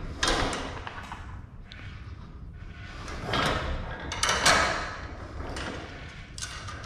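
Steel J-arm of a garage door opener being handled and fitted to the metal door bracket: a few short scrapes and knocks of metal parts, near the start, a little after three seconds and again around four and a half seconds.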